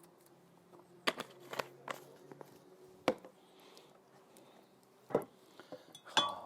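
A handful of scattered sharp clicks and knocks from objects being handled and set down, over a faint steady hum.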